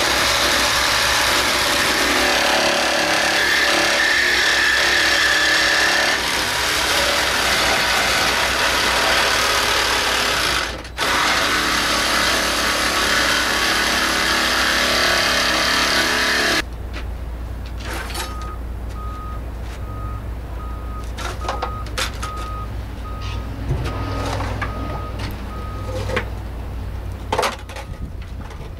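A power tool running steadily, cutting out briefly about 11 seconds in and stopping at about 17 seconds, used in stripping a van for its engine. After that, scattered metallic clicks and knocks of tool work over a low steady hum.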